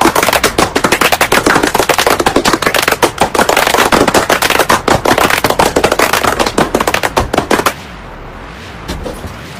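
Applause: many fast, loud hand claps running together, cutting off abruptly near the end.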